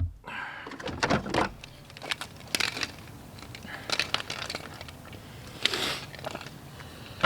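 Jumper cables and their metal clamps being handled and fitted at a car battery: scattered light clicks and knocks with a short rustle near the end.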